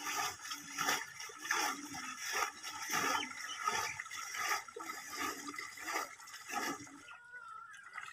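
Shallow muddy water splashing and sloshing in a repeated rhythm, about once every three-quarters of a second, from people wading and working their hands through it; it dies down about seven seconds in.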